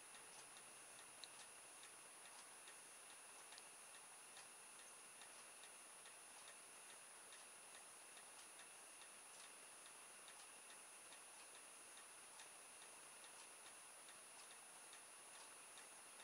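Near silence: faint room hiss with a thin steady high whine and faint, regular ticking throughout.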